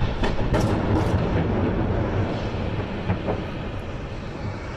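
Burning propane from an overturned tanker truck flaring up in a fireball: a sudden blast, then a heavy rumble with several sharp cracks in the first second and two more about three seconds in, the rumble easing off toward the end.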